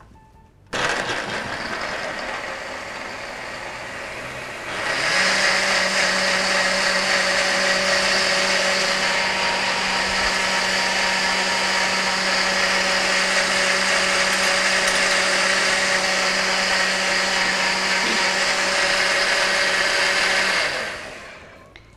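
Countertop blender running as it purées pears, tofu and water into a thick smoothie. It starts about a second in and gets louder about five seconds in. It then runs steadily with a constant motor hum and winds down near the end.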